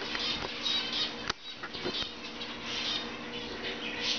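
Small cage birds, budgies and canaries, chirping and chattering in short repeated bursts, with one sharp click about a second in and a faint steady hum underneath.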